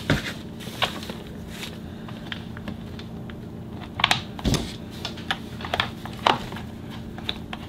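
Scattered small clicks and taps of screws and a small hand tool being fitted into the plastic starter cover of a chainsaw, with a duller knock about four and a half seconds in. A low steady hum runs underneath.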